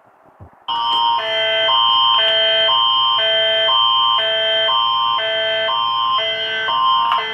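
Canadian Alerting Attention Signal, the Alert Ready tone that opens an Alberta Emergency Alert broadcast. It starts just under a second in as a high steady tone over two chords that alternate about every half second.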